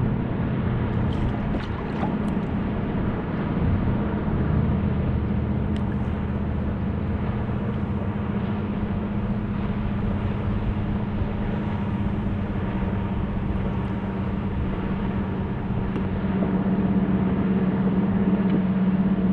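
Steady motor hum over a wash of water and wind noise; the hum grows a little louder near the end.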